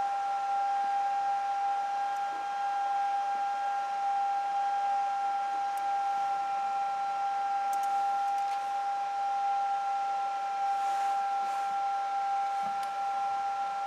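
A steady, unchanging high-pitched whine: one held tone with fainter higher tones above it, from a powered machine or electrical device in the workshop, with a few faint ticks.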